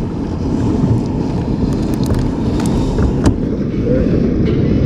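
Steady, rough rumble of wind and choppy water around an open fishing boat, with a couple of sharp knocks about midway.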